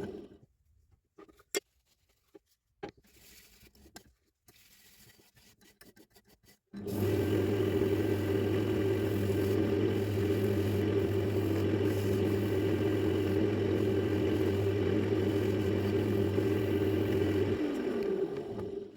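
Workshop power tool's electric motor switched on about seven seconds in, running steadily with a low hum for about ten seconds, then switched off and spinning down. Before it starts there are a few light clicks and knocks of handling.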